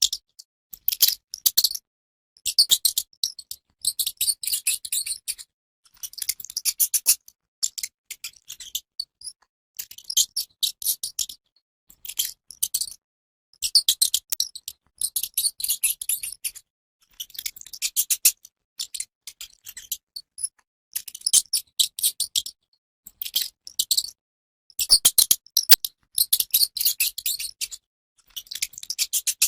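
Mouse sounds: bursts of rapid, high-pitched clicking chatter, each a second or two long, repeating about a dozen times with short gaps between.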